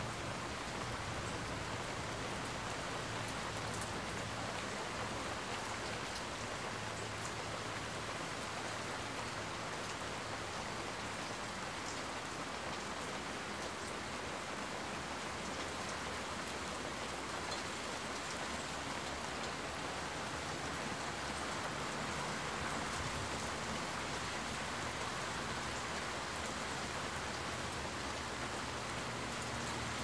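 Steady rain falling: an even hiss with scattered drop ticks.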